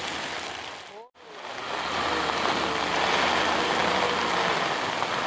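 Steady rain and wind noise with a heavy engine idling underneath. The sound fades out and drops away briefly about a second in, then comes back steady.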